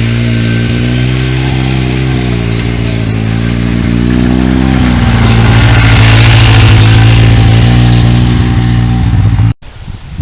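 An engine running steadily, its pitch rising and falling slightly. It stops abruptly near the end, leaving only a faint rustle of leaves.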